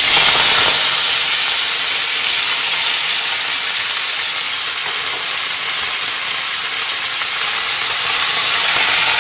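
Chopped fresh fenugreek (methi) leaves sizzling loudly as they fry in hot oil in a kadhai over high heat. The sizzle sets in suddenly as the leaves go into the oil and then holds steady.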